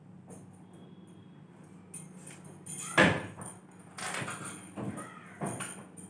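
A single hard knock about three seconds in, followed by a few softer knocks and rustles.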